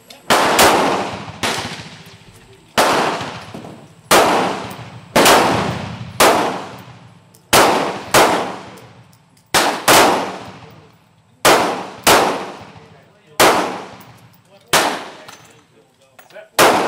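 Repeated gunshots, with a Ruger LCR .38 Special revolver firing among them: more than a dozen sharp reports about a second apart, some in quick pairs, each trailing off in a long echo.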